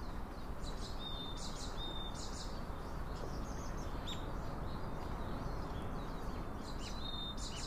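Birds chirping and calling now and then, including several short, level high whistles, over a steady low background noise.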